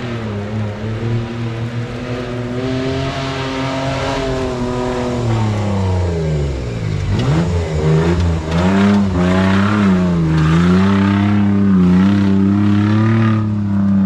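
Off-road race 4x4's engine revving hard under load on a steep dirt climb. The pitch rises, drops sharply about seven seconds in, then climbs again and surges up and down, louder in the second half as the vehicle passes close.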